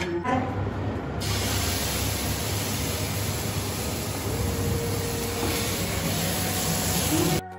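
Sweet flour-and-sugar batter hissing and sizzling on a hot griddle, giving off steam. A few light clicks come first, the steady hiss sets in about a second in, and it cuts off abruptly near the end.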